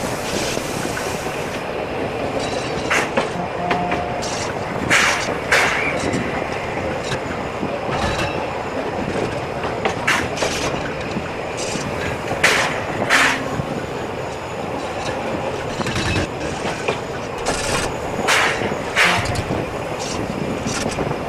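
Narrow-gauge train running along the track: a steady rumble of the carriage with irregular clacks from the wheels passing over rail joints.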